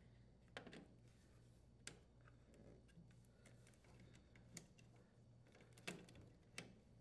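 Faint, scattered plastic clicks and taps from hands fitting a replacement wine cellar control board onto its plastic mounting posts and moving its wire harnesses, about five clicks in all, the sharpest near the end.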